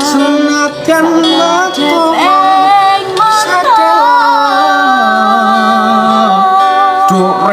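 A Javanese song, sung in long held notes that slide and waver between pitches, with instrumental accompaniment underneath.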